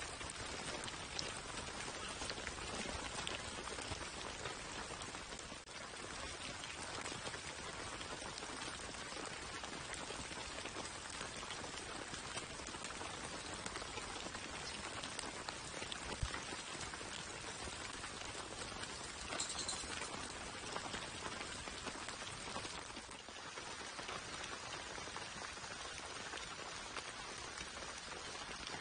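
Steady rain falling, with an occasional faint knock.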